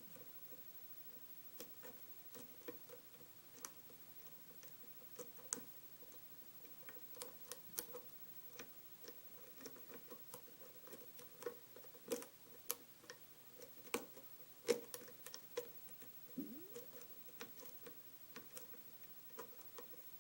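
Lock pick and tension wrench working the pin stack of a five-pin Kwikset lock cylinder: faint, irregular small metal clicks and ticks, the loudest about two-thirds of the way through.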